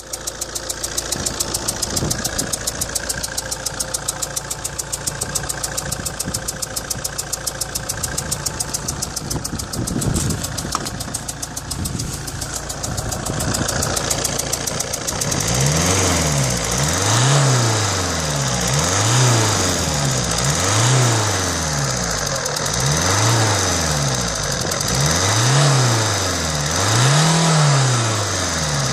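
Alfa Romeo 156 1.9 Multijet 16v four-cylinder turbodiesel idling with a fast, even ticking: the sign of a leaking injector seal on the No. 2 cylinder. About halfway through, the sound changes and a low tone starts rising and falling over and over.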